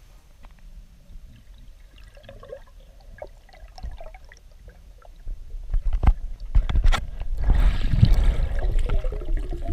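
Water recorded by a camera underwater. Faint clicks and crackles come first, then a few sharp knocks, then from about seven and a half seconds in a loud churning rush of water and air bubbles close to the camera.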